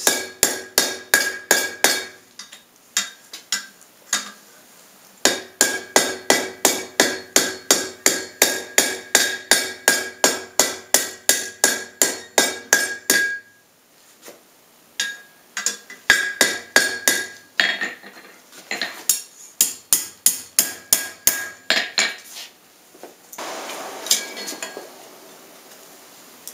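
Hand hammer striking hot square iron bar on an anvil in fast runs of about four blows a second, each blow ringing, as the edges of the bar are chamfered. There are three runs with short pauses between them, and a brief hissing noise near the end.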